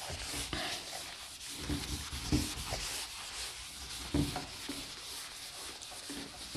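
Handwriting: a pen scratching across the writing surface in short strokes, with a few soft knocks as it is lifted and set down.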